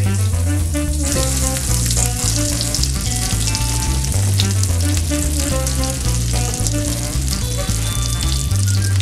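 Chicharrón-crusted fish fillet sizzling as it fries in oil in a skillet, the sizzle growing louder about a second in. Background music with a steady bass line plays underneath.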